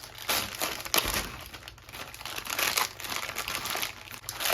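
Plastic inner bag of an MRE being torn open and handled, crinkling throughout, with a sharp crackle about a second in.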